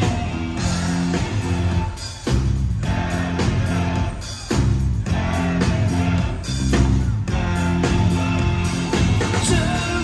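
Live rock band playing with electric guitar, drums and a singer's vocals. The band briefly drops out twice, about two seconds and four and a half seconds in.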